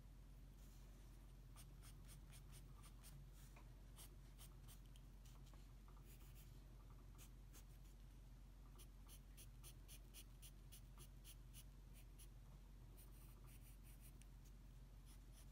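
Faint scratching of a pencil on drawing paper in short strokes, which turn into a quick run of rapid strokes in the second half, over a low steady hum.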